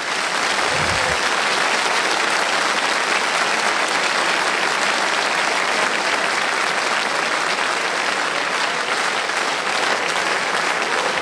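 Studio audience applauding, a dense, steady clapping of many hands that holds at an even level.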